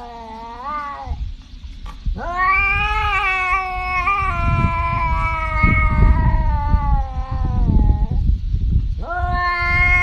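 Tabby cat yowling in long, drawn-out calls: one ends about a second in, a long call of about six seconds follows, and another begins near the end. A low rumbling noise runs underneath.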